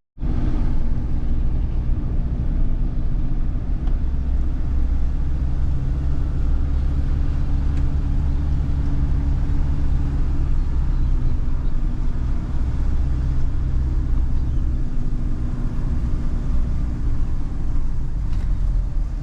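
Motor vehicle engine running steadily with a low, even note that shifts slightly a couple of times, as when driving along.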